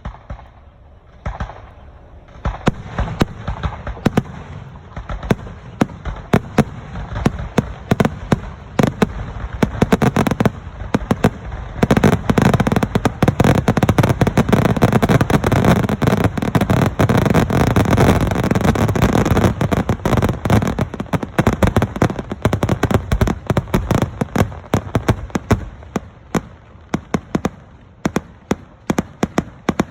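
Aerial fireworks shells bursting in rapid succession. It builds about two seconds in to a dense, nearly continuous barrage of bangs through the middle, then thins to separate sharp reports near the end.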